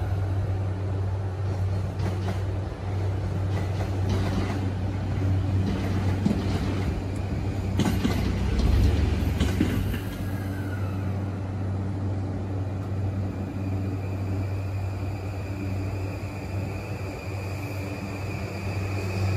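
JR E235-1000 series electric train at a station platform, giving a steady low hum, with louder rumbling and clatter about eight to ten seconds in.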